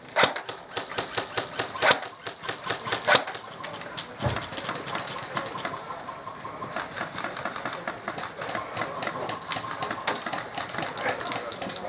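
Airsoft guns firing: a few loud single shots in the first three seconds, then many quicker, fainter shots and bursts overlapping until the end.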